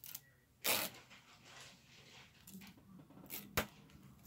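Adhesive protective tape being peeled off the front of a computer monitor in a few short pulls, the loudest about a second in, with a sharp click near the end.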